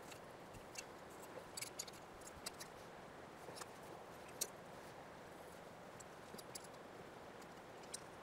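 Hand tools and a brass fitting being handled: an adjustable wrench and Knipex pliers wrench working a threaded brass garden-hose fitting, heard as faint scattered metallic clicks with one sharper click about halfway through.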